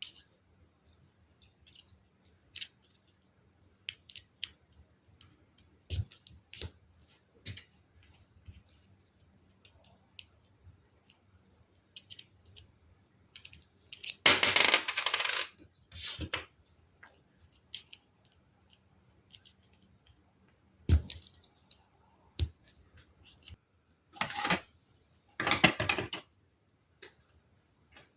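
Small hard plastic LEGO Technic pieces clicking and clattering as they are handled and rummaged through, with two longer spells of clatter about halfway through and near the end.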